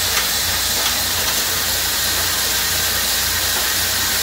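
Circular sock-knitting machine, of a type from about 1924, running at speed: a steady mechanical whirring hiss with no change in pace.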